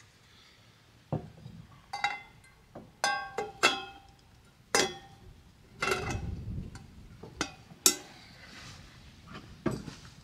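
Stainless steel camp pots and lids clinking: a string of sharp metallic knocks, several ringing briefly, as the cookware is handled and set down on a wooden table.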